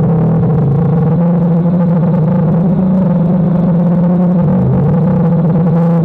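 DJI Phantom quadcopter's propellers humming steadily in flight, the pitch shifting a little as the motors change speed.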